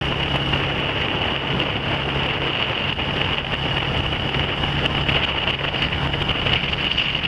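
ATV engine running steadily while riding, with wind noise on the microphone: a steady low hum and a high whine over a rush of wind.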